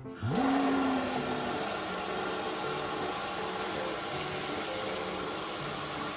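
A steady, loud rushing hiss that starts suddenly, with quiet background music underneath.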